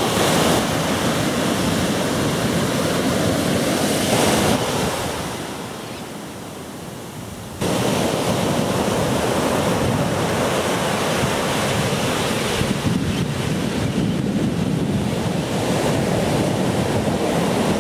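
Ocean surf breaking and washing in, with wind buffeting the microphone. The sound sinks about five seconds in and comes back suddenly a little before eight seconds.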